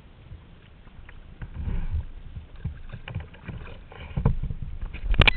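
Sea kayak paddling: the paddle blades dip and splash in the water with irregular dull knocks. It grows louder toward the end, where a few sharp, loud knocks come.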